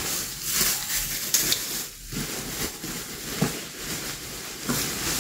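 Thin plastic packaging rustling and crinkling irregularly as hands handle and open it.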